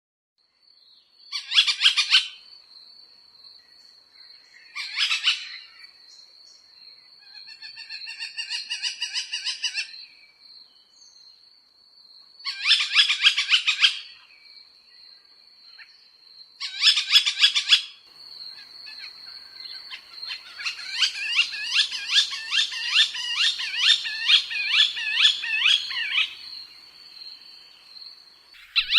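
Calls of a small Accipiter hawk of the shikra and Levant sparrowhawk group. They come as short bursts of rapid, sharp repeated notes, a softer lower series around eight to ten seconds in, and a long run of rapid notes from about twenty to twenty-six seconds, over a thin, steady high whine.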